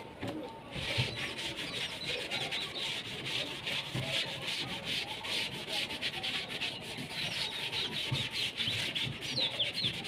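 Blackboard duster scrubbed quickly back and forth over a chalkboard, wiping off chalk writing: a steady scratchy rubbing that starts about a second in.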